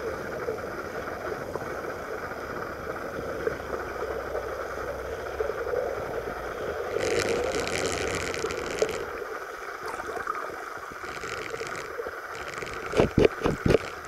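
Underwater pool ambience picked up by a submerged camera: a steady, muffled water hum, with a hissing rush for about two seconds halfway through and a quick run of loud knocks near the end.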